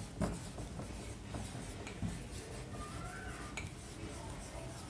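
Marker pen writing on a whiteboard: faint strokes with a few light taps of the tip and a brief thin squeak about three seconds in.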